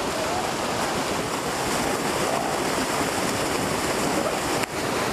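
A large herd of cattle wading through shallow water, many hooves splashing and churning the water in a steady, dense splashing.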